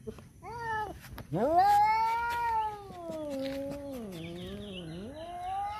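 Tomcats caterwauling in a standoff over a female. A short yowl comes about half a second in, then one long wavering yowl that slowly sinks in pitch, and another rising yowl begins near the end.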